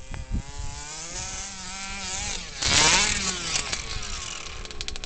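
Small 23cc two-stroke gas engine of an RC bigfoot truck with a DDM tuned pipe, revving up and down as the truck drives in snow. The pitch wavers through the first couple of seconds, then rises to a loud rev about three seconds in and falls back.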